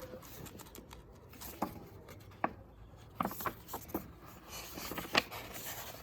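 Light handling sounds of a book being leafed through: a few scattered taps and paper rustles, the sharpest about five seconds in.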